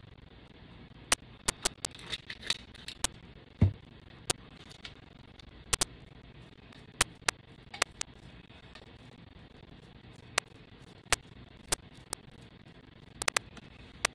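Scattered sharp clicks and taps from small plastic glitter jars, cups and a paintbrush being handled and set down on a craft table, with one duller thump about a third of the way in.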